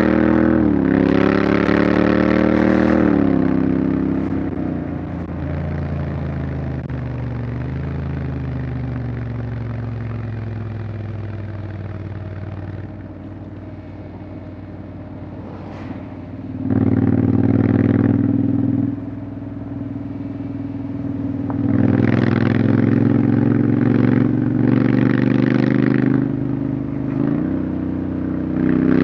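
Honda X-ADV 750's parallel-twin engine under way, pulling up in pitch for the first few seconds, then easing off and falling to a quieter run. Past halfway it opens up loudly again in several spells of acceleration.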